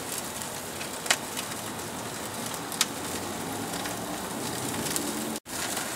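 Cowboy-cut ribeye sizzling on a hot gas grill, a steady hiss of searing meat and flaring fat with a couple of sharp pops. The sound breaks off for an instant near the end.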